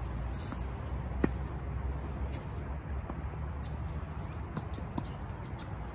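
Tennis rally: a sharp pop of a racquet striking the ball about a second in, followed by fainter pops of the ball bouncing and being hit back, over a steady low background rumble.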